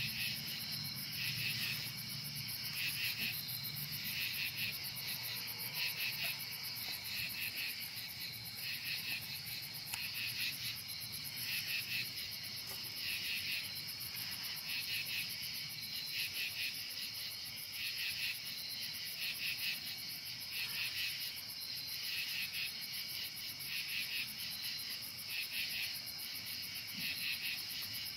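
Crickets and other night insects chirping in a steady chorus, with a louder pulsing call recurring about once a second over a thin, high, continuous buzz.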